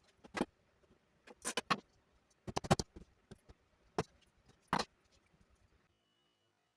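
Light knocks and clacks of small wooden pieces being handled and set down: about a dozen in irregular groups, stopping just before six seconds in.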